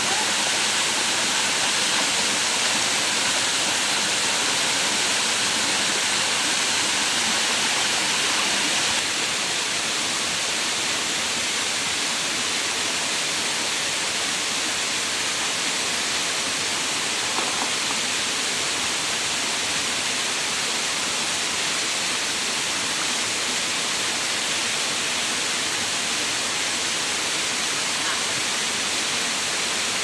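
Water of a shallow forest stream rushing and cascading over rocks: a steady, even hiss of flowing water that drops slightly in level about nine seconds in.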